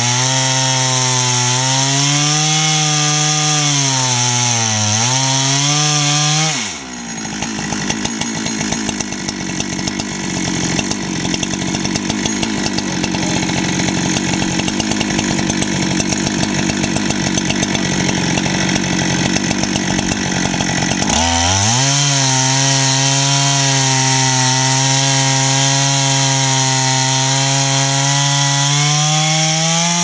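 Husqvarna 395XP two-stroke chainsaw on an Alaskan mill ripping a slab lengthwise through a log, running under load with its engine note wavering. About seven seconds in the revs drop sharply and the saw runs much lower and rougher for about fourteen seconds, then climbs back to full speed.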